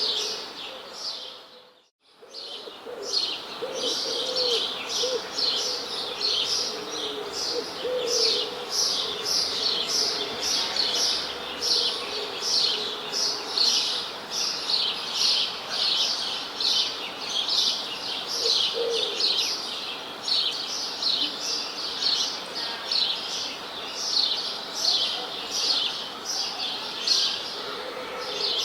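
Birds chirping in a dense chorus, short high chirps repeating about twice a second with a few lower wavering notes beneath. The sound fades out briefly about two seconds in, then comes back.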